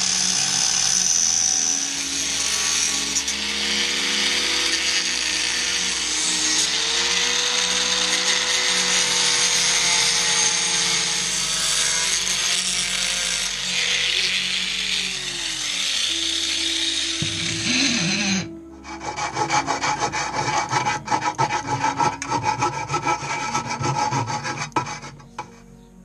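Angle grinder cutting through a motorcycle exhaust pipe: a loud, steady grinding whose motor pitch wavers as the disc bites into the metal. About 18 seconds in it stops abruptly, and a faster, choppy rattling follows.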